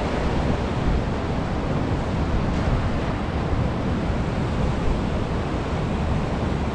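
Fast river water rushing over rocky rapids in a steady, unbroken rush, with wind on the microphone.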